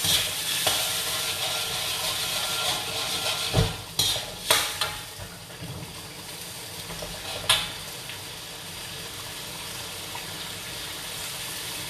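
Chili paste sizzling in hot oil in a wok, being fried until the oil separates from it. A spatula stirs it, with a few sharp knocks on the wok around four seconds in and once more near eight seconds; the sizzle eases after about five seconds.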